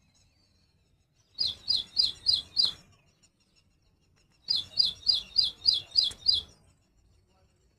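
Little woodstar, a small hummingbird, giving two bouts of rapid, high, evenly spaced chirps: five notes a little over a second in, then about eight notes past the middle, each note dropping in pitch, about four a second.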